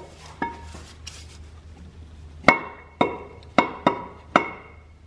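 Sharp metallic clinks with a ringing tone as a flywheel is handled and fitted onto the crankshaft of a Toyota JZ engine. There is a single clink about half a second in, then five in quick succession from about halfway.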